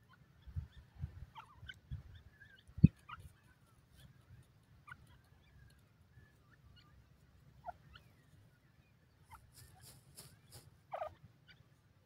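Young grey francolins giving short, soft chirping calls, scattered and separate, with a louder call near the end. A single loud thump comes about three seconds in, and a few sharp ticks shortly before the louder call.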